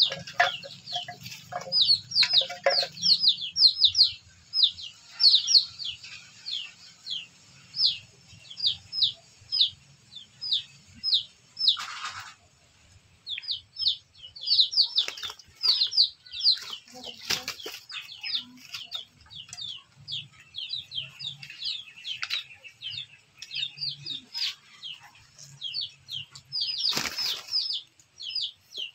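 High, falling bird chirps, a few a second, go on throughout. Over them come brief wing flaps and scuffles of a hen and a small rooster fighting, three of them louder.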